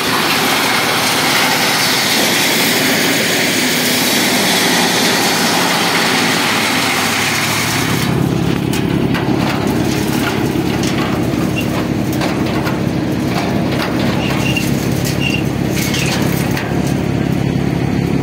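Engine of a compost-making machine running steadily. For the first eight seconds a loud rushing noise lies over it. After that the engine's hum stands out plainly, with scattered clicks and knocks.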